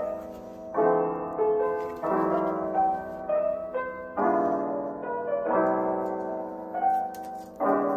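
Soft background piano music, sustained chords changing every second or so.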